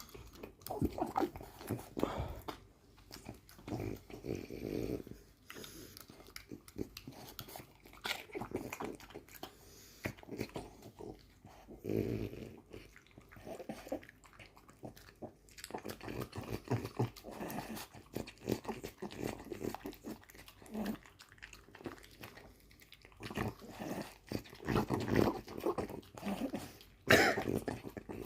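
A French bulldog licking dishes: irregular bouts of wet licking and breathing noises with many small clicks, and a louder burst near the end.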